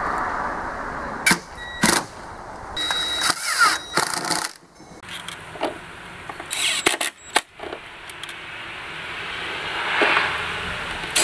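Cordless drill driving screws into soft pine soffit boards in a few short runs, with sharp clicks and knocks from handling the metal mounting base.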